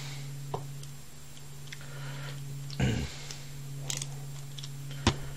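Scattered light clicks and taps of small M3 screws and 3D-printed plastic puzzle parts being handled, and a screwdriver driving a screw into a plastic piece, over a steady low hum.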